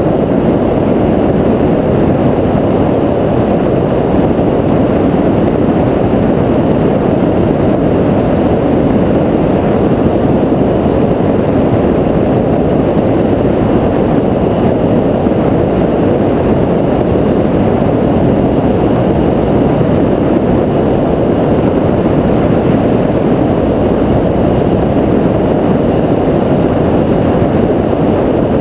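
Cessna 172R's four-cylinder Lycoming piston engine and propeller running steadily, heard from inside the cabin with the rush of airflow.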